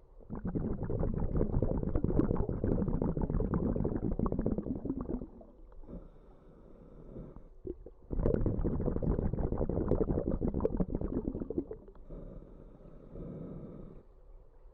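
Scuba diver breathing underwater through a regulator: exhaled bubbles gurgling in two long bursts of about five and four seconds, with quieter stretches between them.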